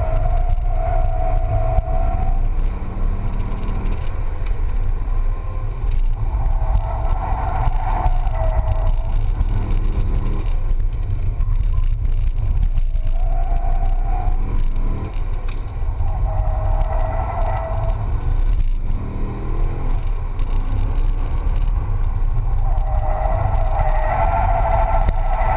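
Chevrolet Corvette Z06's 7.0-litre LS7 V8 driven hard, heard from inside the cabin, revving up again and again under a heavy low rumble. Tyres squeal in several drawn-out, wavering bursts as the car drifts through corners, the longest near the end.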